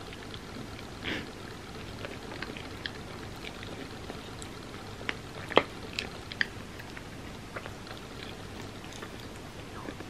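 Close-miked eating sounds: wet mouth clicks and chewing of a chocolate nicecream sundae, with a metal spoon clicking and scraping in the ceramic dish. Scattered sharp clicks over a steady hiss, the loudest a little past halfway.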